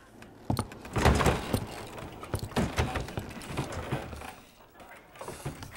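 A series of sharp knocks and clatters: one hit about half a second in, a loud cluster about a second in, then many smaller clicks trailing off near the end.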